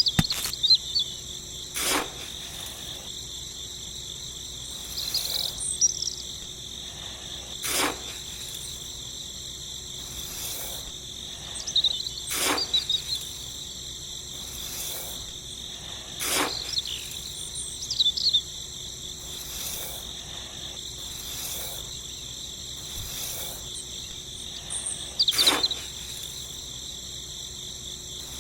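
Steady chorus of crickets or similar insects, with short bird chirps every few seconds. Five sharp clicks or taps fall at intervals of roughly four to five seconds.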